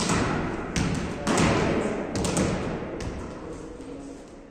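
A volleyball being hit back and forth by players passing it: several sharp thumps about a second apart, each ringing on in the echo of a large gym hall.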